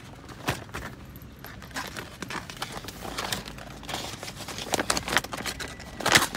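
Clear plastic document folder being handled, its stiff plastic crinkling and clicking in irregular bursts, loudest near the end.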